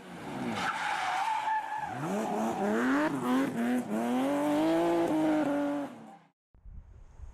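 Audi RS3's 2.5-litre turbocharged inline five-cylinder engine revving, its pitch rising and falling several times. The engine sound cuts off about six seconds in, leaving a faint low rumble.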